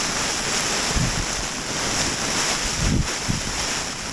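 Strong gusting wind and rain beating on the nylon fly of an REI Half Dome 2 Plus tent, heard from inside as a steady loud rush. Two low thumps from gusts come about one and three seconds in.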